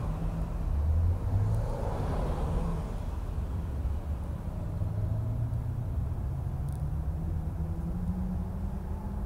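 Low engine rumble, steady with a slight waver in pitch, swelling a little about a second or two in and rising slightly in pitch near the end.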